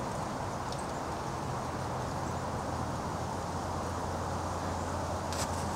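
Steady outdoor background noise: a low hum under a broad hiss, with a few sharp clicks about five seconds in.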